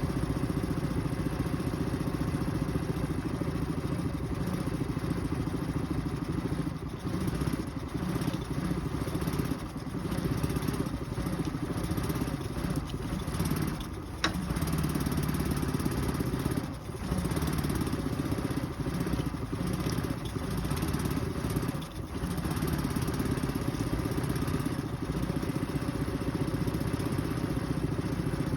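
Suzuki 9.9 EFI outboard, a two-cylinder four-stroke, idling unevenly, dipping briefly several times as if stumbling. This is the rough idle that the owner says comes at random times.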